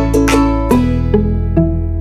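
Background music: a light tune picked out on a plucked string instrument, over long held bass notes.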